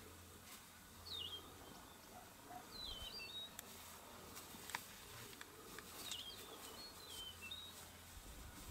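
A wild bird repeating a short, falling chirped phrase several times, faint, over a low steady rumble, with a few sharp clicks near the middle.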